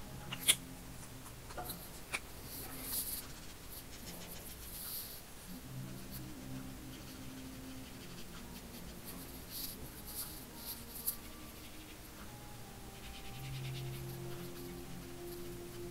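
Marker nib scratching and swishing across Strathmore paper in short colouring strokes, with a sharp click about half a second in and a smaller one about two seconds in.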